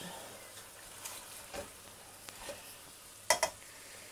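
Spatula stirring chicken and dry spice powders through a frying onion-tomato masala in a stainless steel pot, with soft scraping over a faint sizzle. A sharp double knock about three seconds in.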